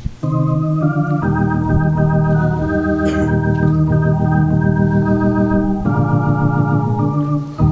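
Church organ playing a hymn introduction in held chords that start just after the beginning and change a few times, about a second in, near six seconds and just before the end.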